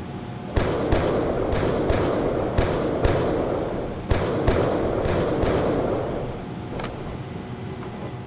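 A run of about a dozen sharp bangs, mostly in pairs, each trailing off with an echoing tail, over a steady hum. It begins about half a second in and thins out after about seven seconds.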